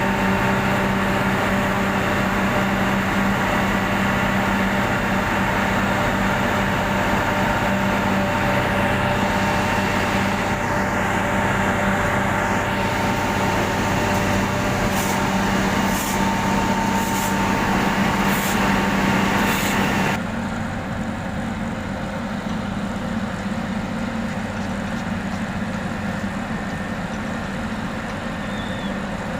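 Heavy road-construction machinery, such as a cold milling machine and dump truck, running with a steady engine drone and held tones. Near the middle come five sharp high clicks about a second apart. About two-thirds of the way through, the sound changes abruptly to a quieter, duller engine rumble.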